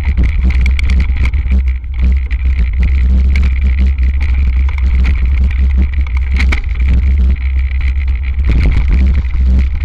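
Hardtail mountain bike descending a rough dirt trail: heavy wind rumble on a handlebar-mounted camera, with constant rattling and knocking of the bike over the bumpy ground.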